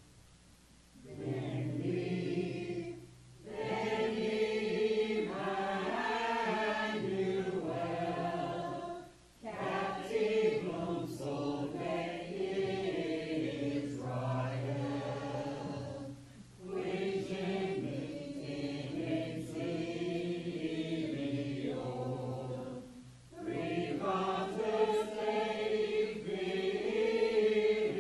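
Mixed church choir of men and women singing, in phrases several seconds long with short breaks between them.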